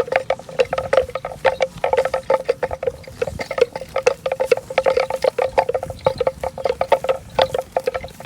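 Cow bell clanking in rapid, irregular strikes, each with a ringing tone, shaken by the cow's head as it grazes.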